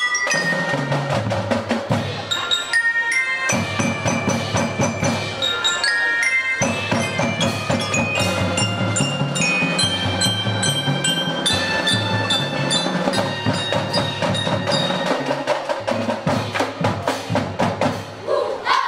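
Children's marching band playing a concert piece, with mallet percussion (bells and xylophones) ringing over drums and lower parts. The music stops near the end.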